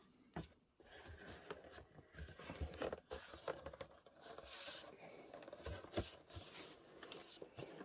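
An old, stiff cardboard box being worked open by hand: irregular rubbing, scraping and rustling of cardboard, with a few sharp knocks.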